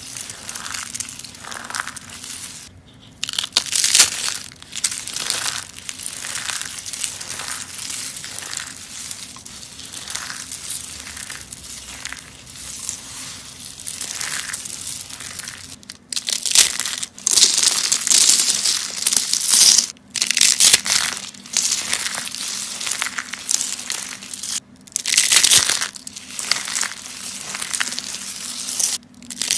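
Dried soap crunching and crumbling as it is crushed. It starts as a quick run of small crunches, about two a second, and from about halfway through turns into louder, longer crushes with brief breaks between them.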